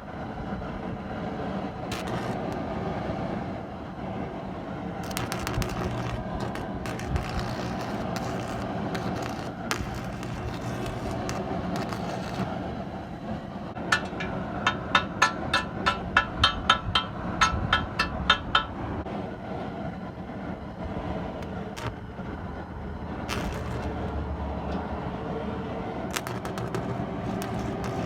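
Propane burners running steadily, preheating a cast-iron Cat 60 exhaust manifold for welding. About halfway through comes a quick run of a dozen or so ringing metal strikes, about three a second.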